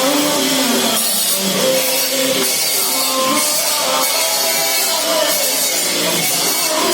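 Background music, rock with drums and guitar, playing at a steady loud level.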